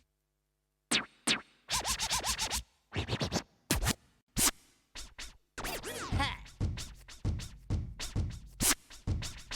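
Yamaha DTX700-series electronic drum module playing DJ turntable-scratch samples, triggered from the pads. After about a second of silence comes a quick, irregular run of short scratches with swooping pitch.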